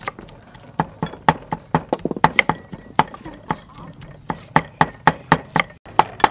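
Kitchen knife knocking on a thick round wooden chopping board as shallots are sliced: quick, sharp knocks, about three or four a second, with a brief break near the end.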